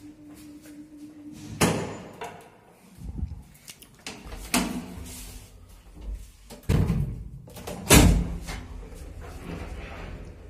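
Old lift doors being worked: the manual hinged landing door clunks and slams, then the car doors close with heavy metal slams, the loudest about eight seconds in. A low steady hum sets in near the end.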